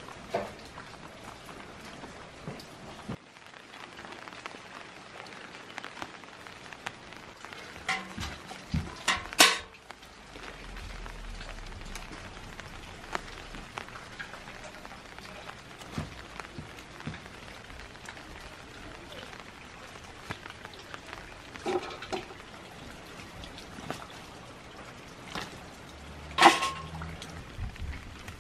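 Green beans being picked by hand: rustling of bean vines and leaves with occasional sharp snaps, the loudest about nine seconds in and near the end, over a steady hiss of light rain.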